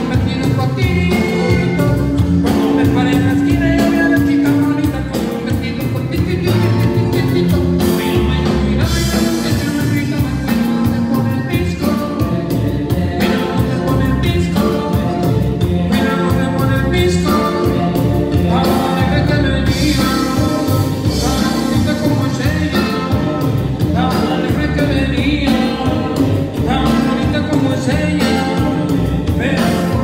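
Live cumbia band playing a song through the PA, with strummed guitar, a steady driving beat and a sung lead vocal.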